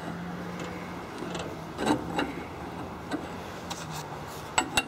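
Hands and parts being worked on a riding mower's small engine: light scraping and a few sharp knocks, about two seconds in and twice near the end, over a faint steady hum.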